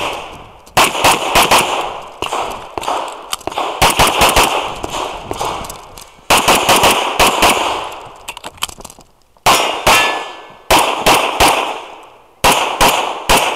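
Rapid pistol fire from a 1911-style pistol on an IPSC stage: quick strings of shots, mostly pairs and short bursts, separated by brief pauses, each shot trailing off in echo.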